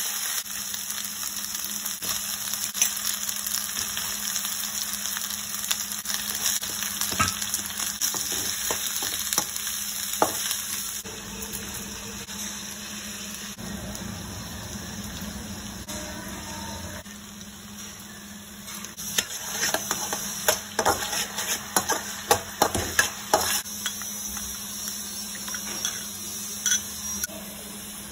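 Vegetables frying in oil in an aluminium kadai, a steady sizzle with a metal spoon scraping and clinking against the pan as it is stirred. The scrapes and clinks come thickest and sharpest for a few seconds past the middle.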